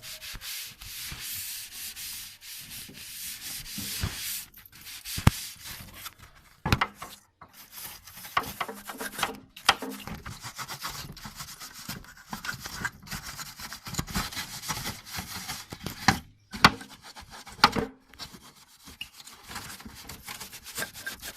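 A cloth rubbing and wiping over the air conditioner's plastic cover, a rough steady hiss, broken by several sharp plastic clicks and knocks as the cover is handled and fitted.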